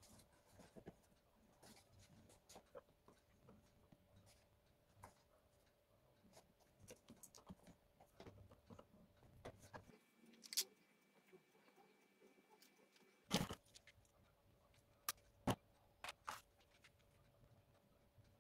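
Faint light clicks and taps of small dollhouse miniatures being handled and set in place, with a few sharper clicks in the second half, over a faint steady hum.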